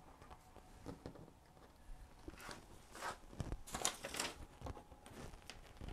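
Faint handling noise: scattered light rustles and clicks, busiest about three to four seconds in, as hands pick up the opened STK5441 hybrid regulator chip over a paper printout.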